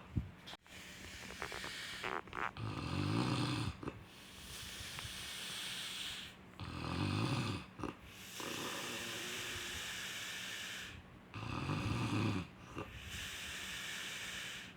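Snoring in a slow, even rhythm: a low rattling snore on each in-breath, then a long hissing out-breath, about three breaths, one every four to five seconds. A couple of short clicks right at the start.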